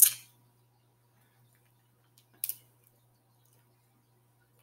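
Close-miked mouth eating sounds from a seafood boil eaten by hand: a sharp smack right at the start and a softer one about two and a half seconds in.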